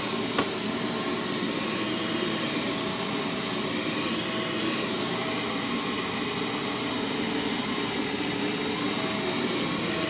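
Dyson Cinetic Big Ball vacuum cleaner running steadily, with a brief click about half a second in; its suction is weak.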